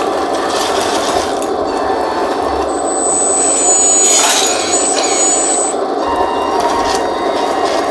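Electric hydraulic pump and drive motors of a 1:14-scale RC hydraulic skid steer loader running steadily with a mechanical whirr, and a thin high whine from about three seconds in until near six seconds.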